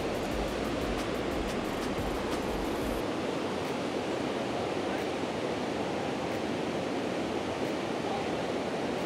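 Steady rush of flowing river water pouring over and below a weir. A low rumble underneath drops away about three seconds in.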